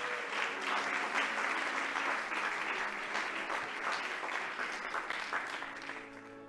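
Audience applauding, dying away near the end, with soft music underneath.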